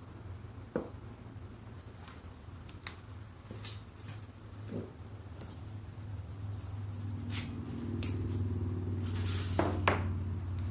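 Scattered light clicks and knocks of pipe fittings being handled and pushed onto lengths of pipe during corral panel assembly, over a low steady hum that grows louder in the second half. A denser rustle with several clicks comes near the end.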